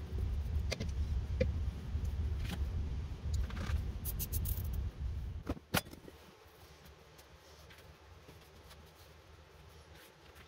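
Light clicks and taps from handling a clog, a brush and a new sole on a workbench, over a low rumble. About halfway through a sharp knock comes and the rumble cuts off, leaving only faint background.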